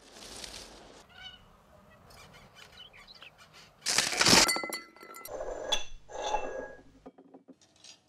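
A glass vessel shattering with a loud crash about four seconds in, its shards ringing, then two more clinks of glass. A soft rustle comes before it.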